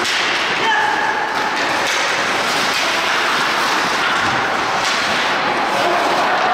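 Ice hockey rink sound during play: a steady din with occasional thuds.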